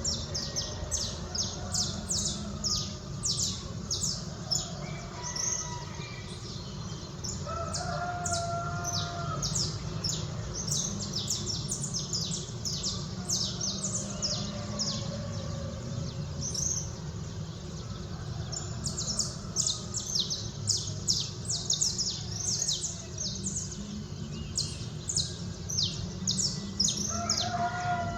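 Songbirds chirping densely in quick, high notes throughout. A rooster crows briefly about eight seconds in and starts crowing again near the end, over a steady low background rumble.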